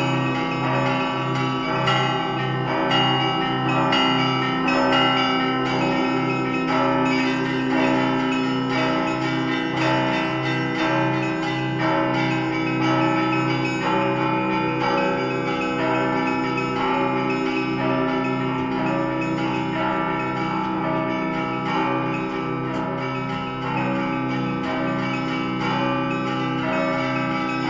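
Russian Orthodox church bells rung by hand in a continuous peal: lower bells struck in a steady rhythm under a constant chiming of many smaller bells.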